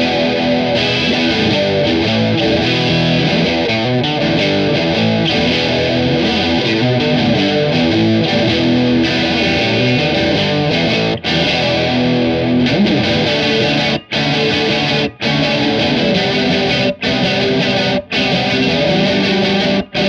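Fender Jaguar electric guitar on its bridge pickup playing a distorted riff through a Small Clone-style analog chorus into an overdrive pedal. The riff has several short, sudden stops in its second half.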